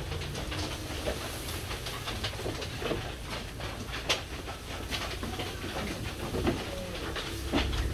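Sheep eating fresh-cut grass from a wooden trough: irregular crunching and rustling clicks as they pull at and chew the grass, over a steady low rumble.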